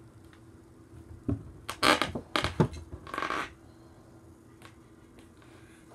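Plastic Lego pieces knocking and clattering: a click, then a quick run of loud knocks and a short scrape about two to three seconds in.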